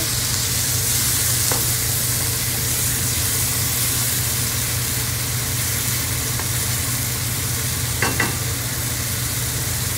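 Minced pork simmering and sizzling in a nonstick pan with freshly added water, stirred with a wooden spatula: a steady, even sizzle with a steady low hum underneath.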